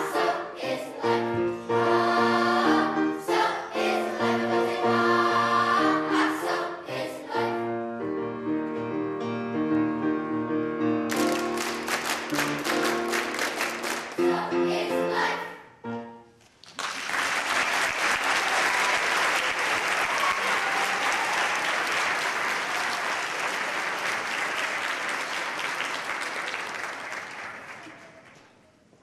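Large children's choir singing with piano accompaniment, the song ending about sixteen seconds in. Audience applause follows and fades out near the end.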